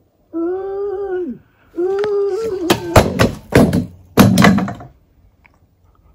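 A cat meowing twice in long, drawn-out calls that drop in pitch at the end, followed by a cluster of several loud knocks and thuds, the loudest sounds here, before it goes quiet.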